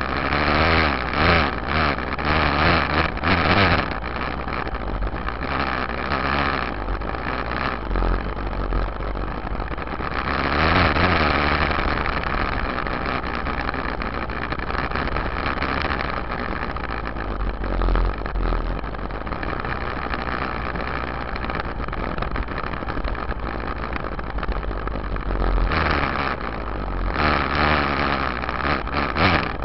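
Yamaha YZ dirt bike engine running while the bike is ridden, growing louder as the throttle opens near the start, about ten seconds in and again near the end. The sound is picked up from the rear fender, close to the rear wheel.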